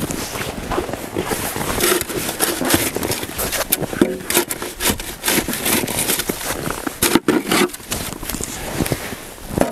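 Snow shovel scraping along the ground and pushing light, fluffy snow in repeated irregular strokes.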